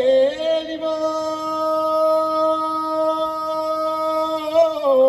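A man's unaccompanied voice singing a Neapolitan canto a figliola: one long, steadily held high note, then a quick ornamented turn near the end that settles onto a slightly lower held note.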